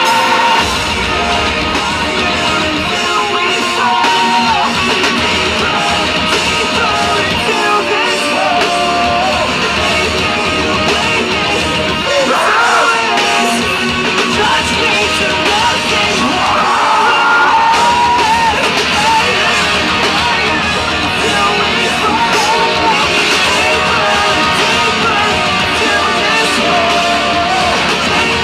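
Live metalcore band playing loudly through a festival PA: distorted electric guitars, bass and drums, with vocals over the top.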